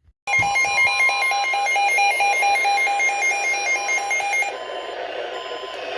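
Weather alert radio's alarm going off: a loud, rapid pulsing beep of two or more tones at about four beeps a second, starting suddenly. About four and a half seconds in it stops, giving way to a quieter hissy radio signal.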